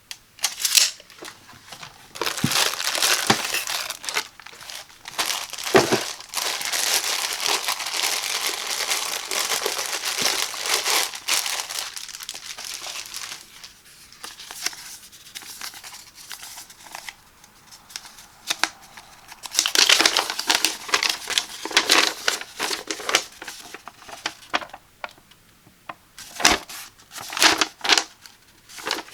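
Plastic packaging crinkling and rustling as an electric heating pad is unpacked by hand. It comes in long spells of handling with a few sharp clicks and quieter pauses between.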